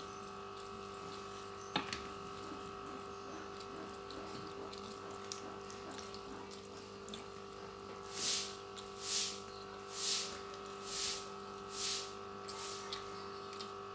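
Faint steady hum of a quiet room, with a single soft click about two seconds in. Past the middle come five soft hissing breaths, about one a second, from a person eating by hand.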